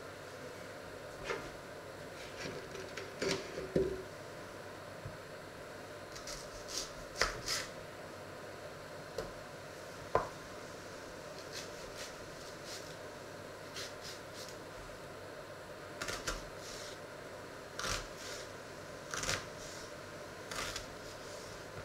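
Small kitchen knife slicing and chopping peeled hard-boiled eggs on a wooden board: irregular light taps and scrapes of the blade.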